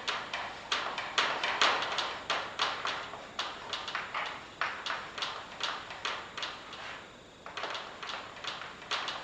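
Chalk writing on a blackboard: a quick run of short tapping, scratching strokes, several a second, with a brief pause about seven seconds in.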